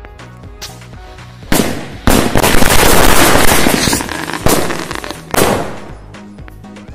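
Firecrackers going off: a sharp bang about a second and a half in, then a loud noisy blast lasting about two seconds, then two more sharp bangs that each fade away. Background music with a steady bass beat runs underneath.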